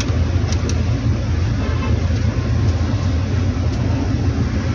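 A steady low hum over a constant background noise, with a couple of faint clicks about half a second in.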